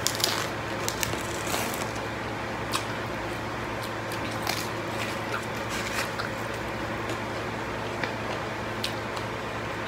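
Eating by hand: chewing raw vegetables (small green eggplant, lettuce) and lettuce leaves being torn, heard as scattered small clicks and crackles over a steady low hum.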